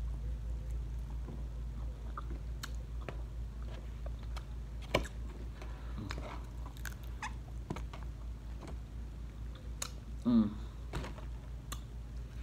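Chewing and crunching on a hard-fried taco shell, with sharp crunches scattered through; the shells were fried too hard. A low steady hum lies underneath, and a short hum of the voice comes about ten seconds in.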